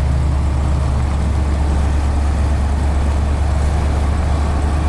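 Steady low engine and road drone heard from inside a moving car's cabin.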